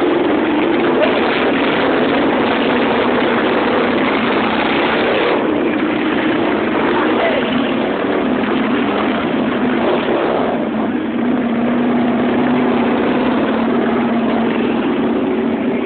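Big motorcycles, sport bikes and a touring bike among them, riding past one after another, their engines running together in a steady, loud stream with pitches drifting slightly as each goes by.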